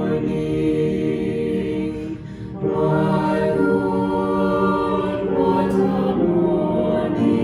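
Choir singing slowly in long held notes, with a brief breath break about two seconds in.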